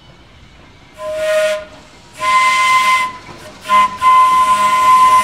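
Horn of an approaching Porto-built vintage streetcar sounding a warning pattern: a short blast about a second in, a longer blast, a quick short toot, then a long held blast. Each blast is a steady, whistle-like tone.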